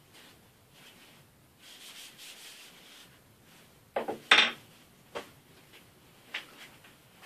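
Cloth rag rubbing over a wooden hammer handle, with a short clatter of knocks about four seconds in and a few lighter clicks after.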